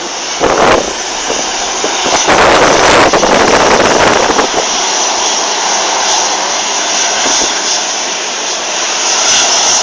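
Jet airliner's engines heard passing over the airfield: noise loudest about two to four and a half seconds in, then continuing more steadily.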